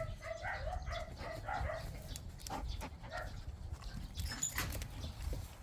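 A dog whining in a run of short, wavering high-pitched calls over the first two seconds, followed by a few faint clicks, with wind rumbling on the microphone.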